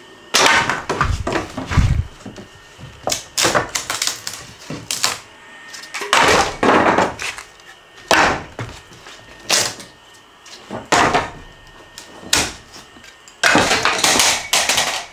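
Loose pieces of old wood from a cut-out subfloor being handled and tossed aside: a series of irregular wooden knocks, clatters and scrapes, with a couple of heavier thuds in the first two seconds.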